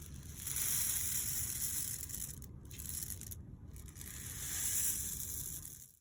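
Homemade rain stick, a cardboard tube filled with rice and a foil spiral, being tipped so the grains trickle down through it in a steady rain-like patter. It swells about a second in, eases off in the middle, and swells again near the end as the stick is turned once more.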